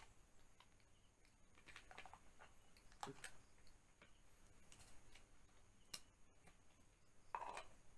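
Near silence with faint scattered clicks and rustles of hands handling a baby monkey on a towel, the strongest a brief rustle a little before the end.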